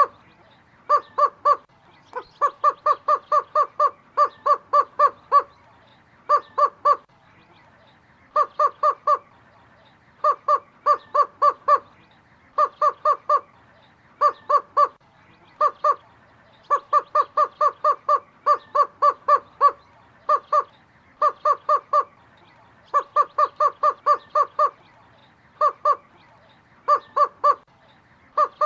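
Greater roadrunner calling: short, even-pitched notes repeated about six a second in runs of two to a dozen, with short pauses between the runs.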